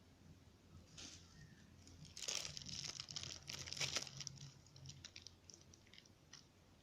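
Crinkling and rustling of food packaging being handled. It is loudest in a dense burst about two to four seconds in and tails off into a few light clicks.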